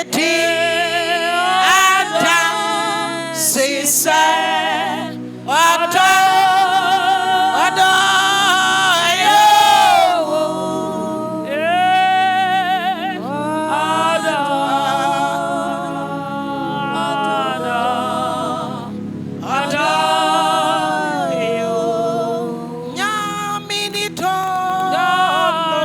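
Gospel worship singing: a voice sings long, ornamented phrases with heavy vibrato over sustained accompaniment, pausing briefly between phrases.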